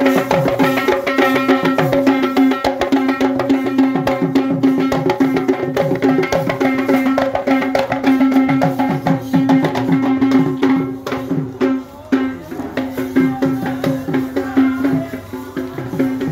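Kandyan barrel drums (geta bera) beaten by hand in a fast, steady procession rhythm over a steady held note, the drumming thinning somewhat about two-thirds of the way through.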